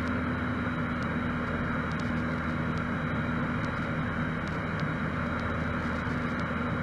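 Steady drone of a Cessna 152's four-cylinder Lycoming engine and propeller in flight, heard inside the cabin, holding an even pitch throughout.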